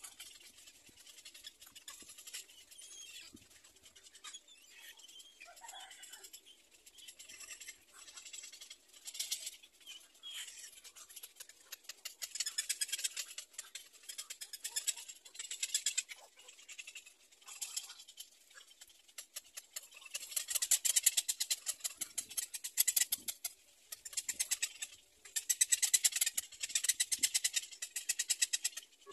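Black-crowned night heron chicks giving rapid, high, clicking chatter in repeated bouts, louder and fuller in the second half.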